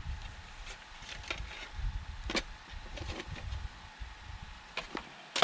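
Camp cookware being handled and lifted out of a hard plastic case: scattered light clicks and knocks of a metal pan and lid, with a sharper knock near the end, over a low uneven rumble.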